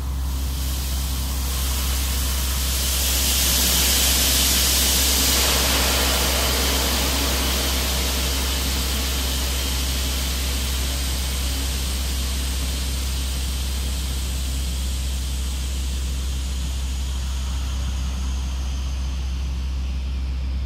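Geothermal borehole drilling rig running: a steady low engine drone, with a loud hiss that swells about three seconds in and slowly eases off.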